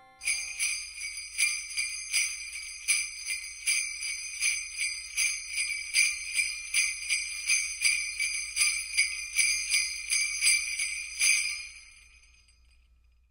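Sleigh bells shaken in a steady rhythm, about two and a half shakes a second, stopping about a second and a half before the end and ringing away.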